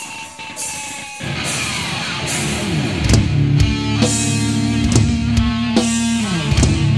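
Recorded heavy rock music with guitar: a thinner intro gives way about a second in to the full band, with sustained low notes and regular drum hits.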